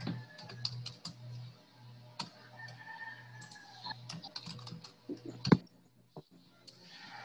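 Typing on a computer keyboard: rapid key clicks in two spells, the loudest keystroke about five and a half seconds in.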